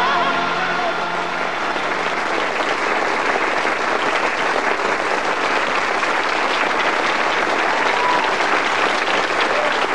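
Audience applauding, steady and dense, after a sung song; the singer's last held, wavering note dies away in the first second as the clapping takes over.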